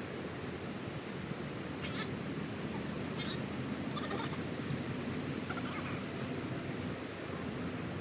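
Four short, high animal calls, spaced about a second apart, over a steady rushing background.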